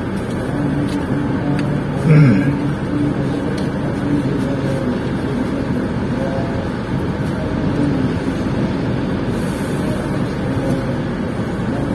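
Steady vehicle rumble heard from inside a car's cabin, with a short louder sound that falls in pitch about two seconds in.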